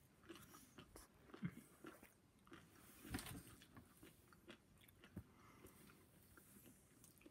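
Faint chewing of a mouthful of fried chicken sandwich, with scattered soft mouth clicks.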